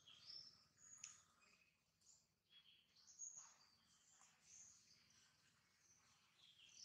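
Faint, scattered high chirps of small birds calling over near silence, with one faint click about a second in.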